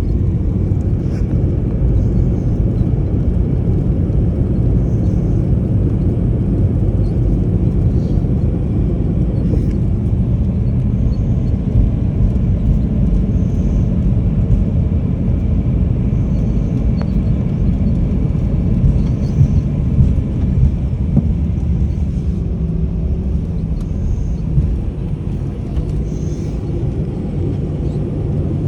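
Steady low rumble inside the cabin of an Airbus A321-200 rolling on the ground after landing, engines and wheels running, with a few small bumps along the way.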